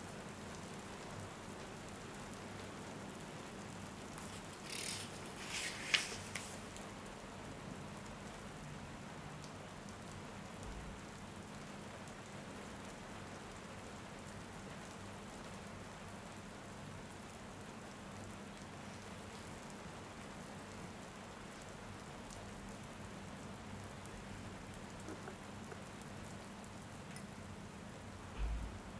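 Steady rain falling, an even hiss. About five seconds in there is a short rustle ending in a sharp click, and a low thump comes near the end.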